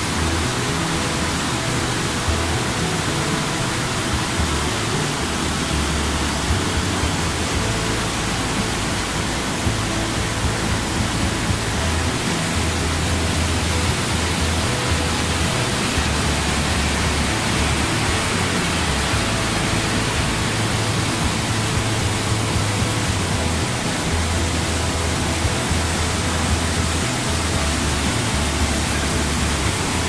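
Rhine Falls, a large river waterfall, giving a loud, steady rush of falling and churning water, with background music under it.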